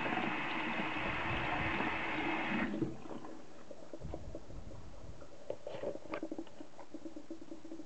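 Bathroom tap water running into the sink over hands rinsing pumice soap off a multimeter's rubber case, shut off abruptly about three seconds in. Afterwards a low steady hum with a few faint drips and handling knocks.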